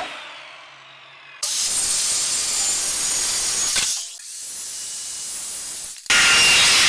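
Power saw cutting through wood, a loud rasping hiss in several stretches that start and stop abruptly.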